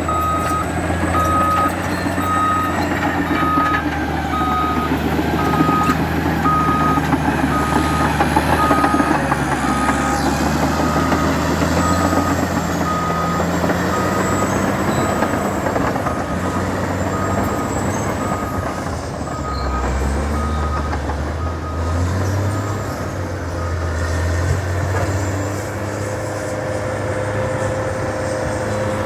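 Caterpillar D8 bulldozer's diesel engine running steadily, with its reversing alarm beeping at an even pace; the beeps grow fainter and stop about three-quarters of the way through.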